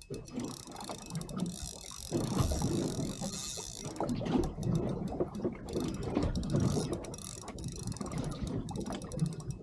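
Fishing reel being cranked with a fish on the line, its gears and ratchet clicking in an uneven run; a hiss is heard between about two and four seconds in.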